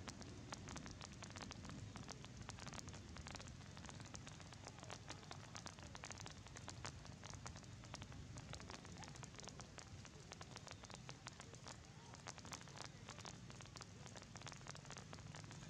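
Rain falling, a faint steady patter of many small drops.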